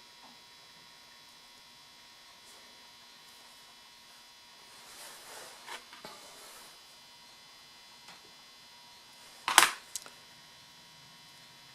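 Low steady mains hum with faint handling rustles as small ignition-switch parts are worked by hand. One sharp click about nine and a half seconds in, with a smaller click just after, from a small part being handled or set down.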